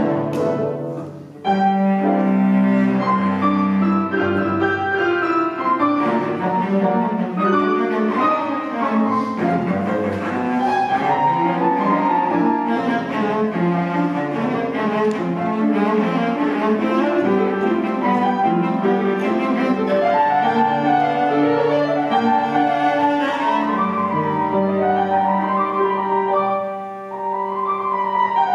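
Cello and piano playing a fast, busy classical passage in Presto tempo. The music breaks off briefly about a second in and dips again near the end.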